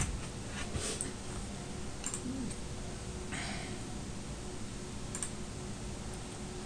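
A few sparse clicks of computer keyboard keys as a command is typed and entered, over a steady faint hiss and hum; the sharpest click comes right at the start.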